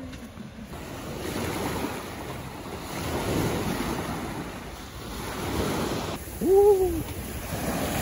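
Sea waves breaking and washing up the beach, swelling and easing every couple of seconds, with wind buffeting the microphone. Partway through, a short voice-like call rises and falls; it is the loudest moment.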